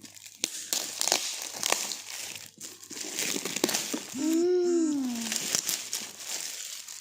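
Gift wrapping paper and packing tape crinkling, crackling and tearing as a taped present is pulled open by hand. A short rising-and-falling voiced hum cuts in about four seconds in.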